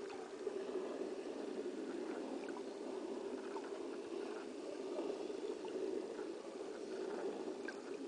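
Underwater ambient sound: a steady, muffled watery rush, with faint, scattered short clicks and chirps over it.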